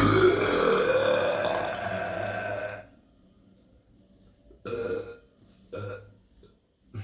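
A man's deliberate, long burp lasting nearly three seconds, its pitch rising as it goes, followed a couple of seconds later by two short burps.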